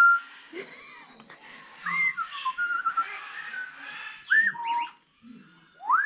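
African grey parrot whistling: a string of short clear whistles that loop and slide up and down in pitch. Near the end comes a longer whistle that sweeps up and then falls slowly.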